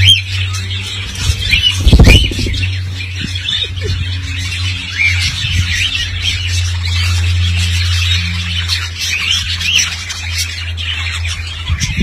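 Parakeets in an aviary chirping and squawking, many short calls one after another, over a steady low hum. A single loud thump comes about two seconds in.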